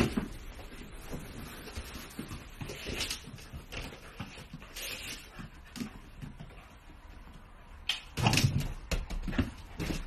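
A dog playing with a ball by a door on a wooden floor: scattered knocks and thumps, with a louder cluster of bumps about eight seconds in.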